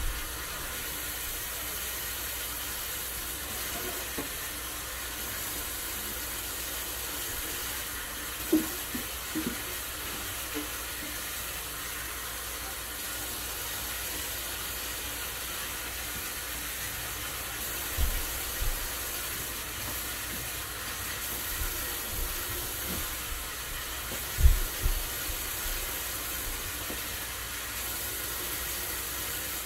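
Kitchen tap running steadily into a sink while turnip greens are rinsed in a stockpot, with a few low thumps from the pot and greens being handled.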